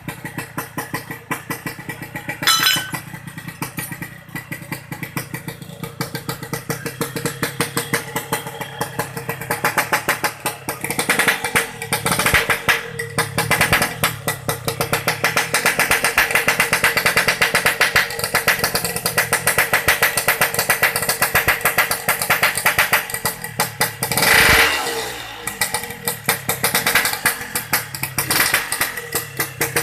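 Yamaha RX-King two-stroke single-cylinder motorcycle engine running and being revved over and over. A sharp blip comes about a second in, and another near the end, after which the revs fall back.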